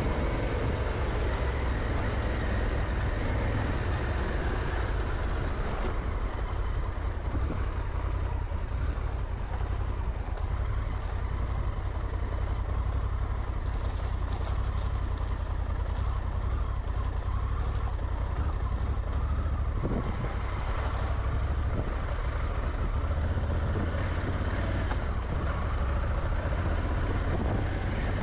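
Honda Africa Twin's twin-cylinder engine running steadily as the motorcycle rides a dirt farm track, under a heavy rumble of wind on the microphone. Scattered crackles come through in the middle.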